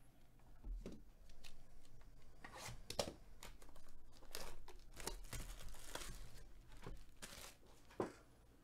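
Plastic shrink wrap on a sealed trading-card hobby box being torn and crinkled by hand: an irregular run of crackles and tearing rasps, with sharper snaps about three seconds in and near the end.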